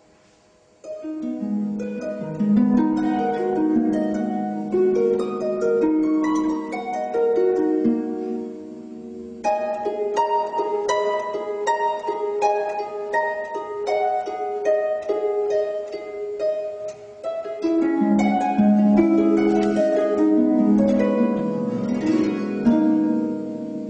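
Solo harp playing a flowing melody of plucked, ringing notes over lower accompanying notes, starting about a second in.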